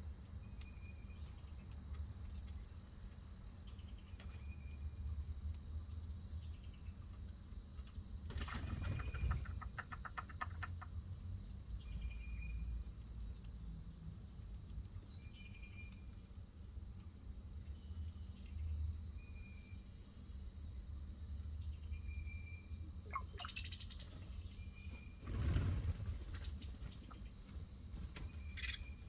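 Songbirds calling around a backyard feeder: one bird repeats a short chirp about every second and a half, with other chirps and a high trill, over a steady high-pitched hum. A couple of brief fluttering rushes, likely wingbeats, come about a third of the way in and again near the end.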